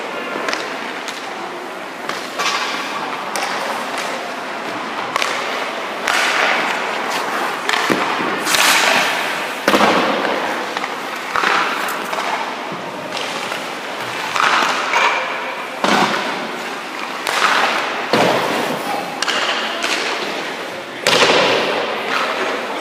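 Hockey skate blades scraping and carving on ice, mixed with sharp knocks of stick and puck and thuds of goalie pads, a dozen or so in irregular succession.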